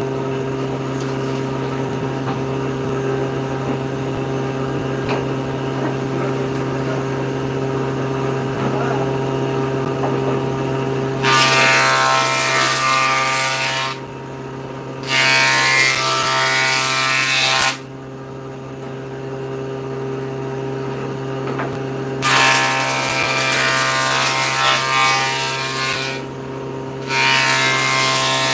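Table saw motor running with a steady hum. From about eleven seconds in, the blade cuts through a wooden board in four loud stretches of two to four seconds each, dropping back to the running hum between cuts.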